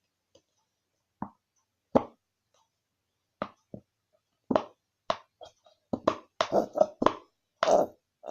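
Fluffy slime squelching and plopping as it is mixed by hand. A few single squelches come first, then they come quicker and louder from about halfway through.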